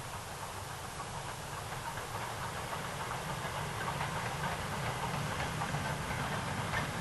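BR Standard class steam locomotive hauling a freight train, its running growing gradually louder as it approaches.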